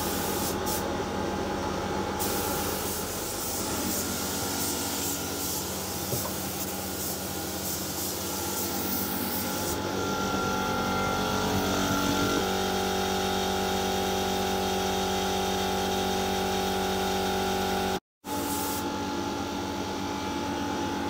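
Spray-painting in a boat's hold: a paint sprayer and ventilation fans running with a steady hum, with the hiss of spraying coming and going. The hum shifts to a different steady pitch a little past halfway.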